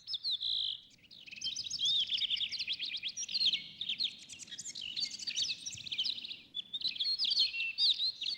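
Several songbirds chirping and singing at once in a dense stream of quick, high chirps and trills, with a short lull about a second in.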